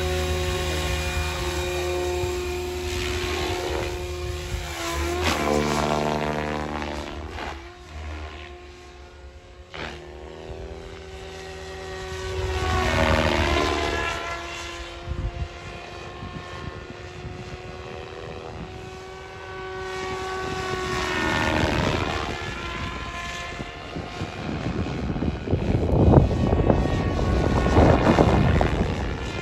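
SAB Goblin 500 electric RC helicopter's motor and rotor blades whining, first on the ground and then in flight, the pitch sweeping up and down and the level swelling each time it passes close, loudest near the end.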